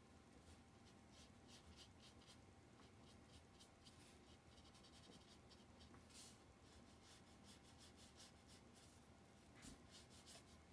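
Faint, soft scratching of a watercolor brush stroked across paper in a quick, irregular series of short strokes.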